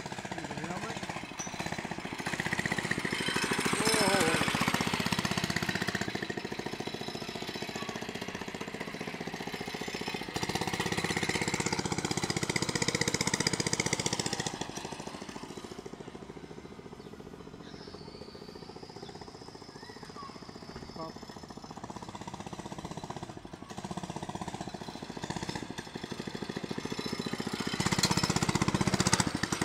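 Baja mini bike's small single-cylinder engine running under way, a rapid putter that swells as the bike comes close and fades as it moves away, three times over, loudest near the end.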